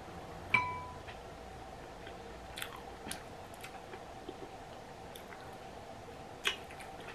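A person chewing and biting food eaten by hand: sticky rice with chili paste and canned mushrooms, with a few soft clicks, the loudest near the end. About half a second in, a sharp clink with a short ring, like a fingertip or the bowl knocking a small ceramic dish.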